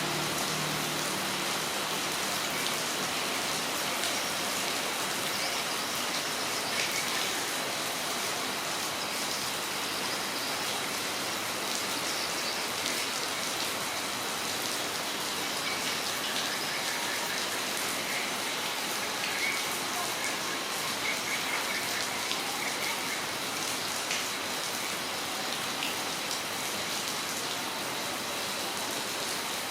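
Steady rain falling on a yard, with the patter of drops striking surfaces.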